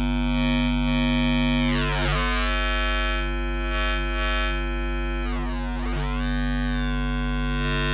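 Low sine-wave test tone distorted through the Wolf Shaper waveshaper plug-in, giving a steady buzzy synth tone thick with overtones. Its timbre sweeps about two seconds in and again near the end as the distortion curve is reshaped.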